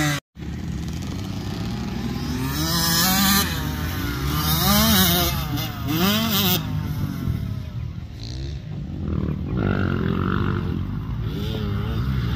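Motocross dirt bike engines revving up and easing off, their pitch rising and falling several times. The sound cuts out for a moment near the start.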